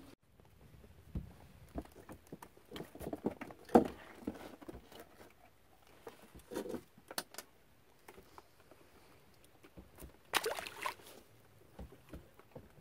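Scattered knocks and bumps as a thornback ray is handled on a boat deck, the sharpest a little before four seconds in, then a short splash about ten seconds in as the ray goes back into the water.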